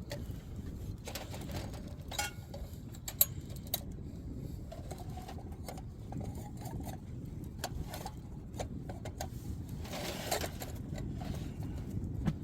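Wood fire crackling, with irregular sharp pops over a steady low rumble, and a brief rustle near the end.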